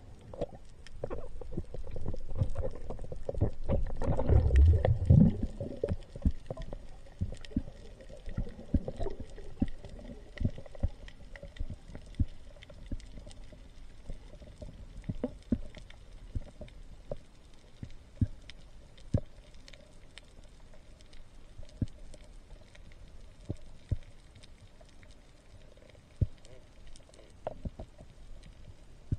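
Underwater sound through a diving camera: a low rushing of water over the camera swells for the first few seconds as the diver swims down, then settles to a quieter background of scattered sharp clicks and crackles over the coral reef.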